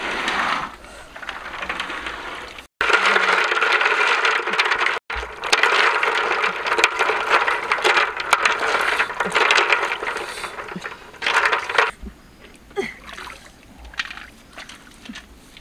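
River snails and eggs being scrubbed by hand in water in a large metal wok: water sloshing, with shells clicking and scraping against each other and the pan. It dies down to scattered clicks near the end.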